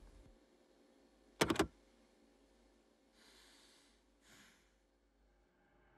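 A corded telephone handset clacks down onto its cradle about a second and a half in, a quick rattle of three hits. Then a man lets out two heavy breaths, a sigh.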